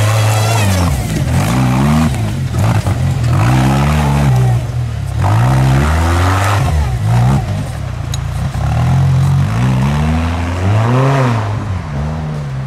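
Tube-frame off-road buggy's engine revving up and falling back again and again as it crawls over rocks and brush.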